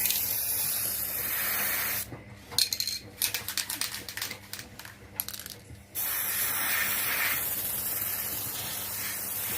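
Aerosol spray-paint can spraying in two long hissing bursts, about two seconds and then three and a half seconds long. In the gap between them comes a run of rapid clicking and clinking.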